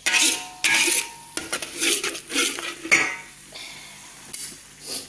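A metal spatula scraping and stirring in a frying pan of hot oil and oyster sauce, in repeated strokes, with a light sizzle. A metallic ring sounds during the first second.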